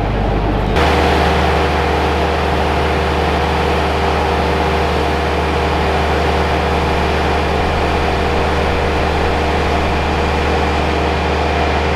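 Steady mechanical drone of running machinery, a low hum with several steady tones above it, cutting in abruptly about a second in and holding unchanged.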